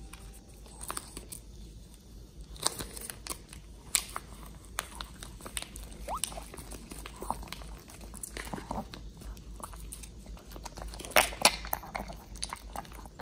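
A Maltese dog licking and chewing soft food from a plastic squeeze pouch, giving wet smacking and chewing clicks with some crinkling of the pouch. The loudest clicks come near the end.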